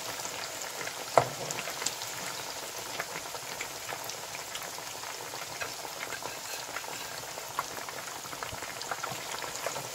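Chapli kebabs (minced-meat patties) frying in a pan full of hot oil: steady sizzling with scattered crackles and pops, the sharpest pop about a second in.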